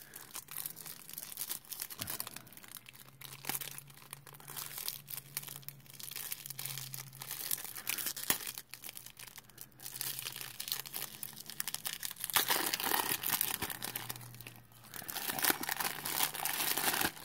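The paper wrapper of a 1991 Topps baseball card pack crinkling and tearing as it is peeled open by hand. The crinkling gets louder and denser in the last few seconds.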